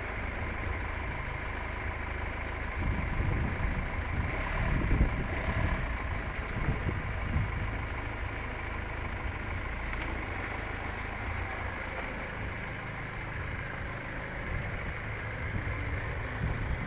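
Mercedes-Benz A180's engine idling steadily, with a stretch of louder, uneven noise a few seconds in.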